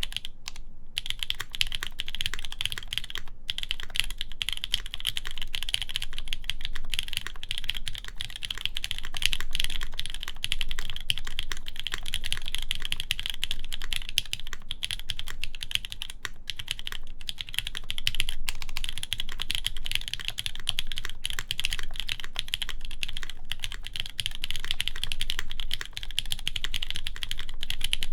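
Steady, fast typing on a Keycult No. 1 Rev. 2 mechanical keyboard with lubed JWicks linear switches on a polycarbonate plate, under GMK Hyperfuse Origins keycaps: a dense run of keystroke clacks with a few brief pauses.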